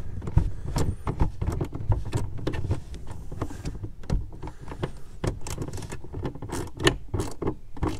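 Socket ratchet clicking in irregular short runs as a tail-light mounting nut is tightened down.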